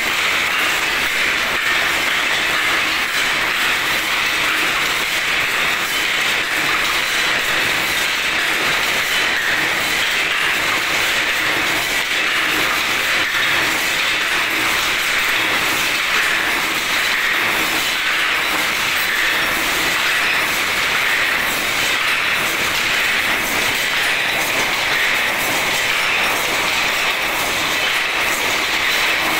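POP jali wire mesh machine running at a steady pace: a continuous rapid metallic clatter.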